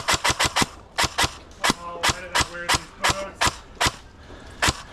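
Airsoft guns firing a rapid, irregular string of single shots, about sixteen sharp cracks, clustered thickly in the first second and then spacing out, with a last shot near the end.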